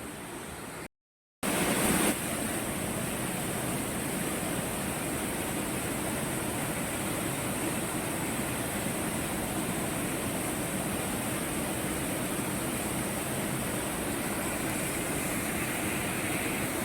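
Steady rush of a waterfall, an even noise without pitch. It drops out briefly about a second in and returns louder for a moment, then runs on steadily.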